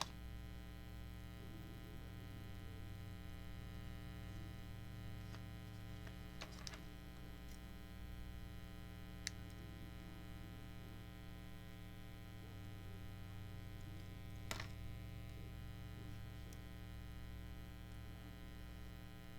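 Steady electrical hum in a small room, with a few faint clicks scattered through it.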